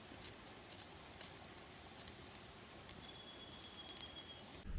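Wood campfire crackling quietly: scattered sharp pops over a faint hiss, with a thin high whistle in the second half.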